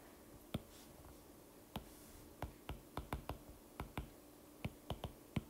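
About a dozen sharp, irregular taps on an iPad touchscreen as keys are pressed one by one on a graphing-calculator app, coming faster in the middle.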